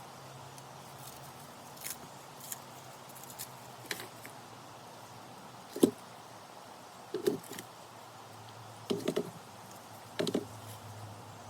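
Scattered light clicks, then four louder knocks spread over the second half, over a low steady hum.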